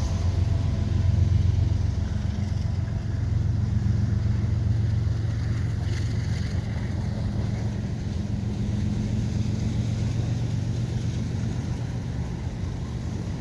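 Diesel freight locomotive engine running as a freight train rolls past: a steady low drone that eases off slightly toward the end. It is the mid-train distributed-power unit of the freight.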